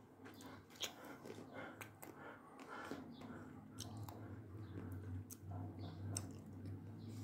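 Close-miked eating sounds of a chocolate-coated Magnum ice cream bar being bitten and chewed: the thin chocolate shell cracks in small, irregular snaps, with wet mouth sounds in between.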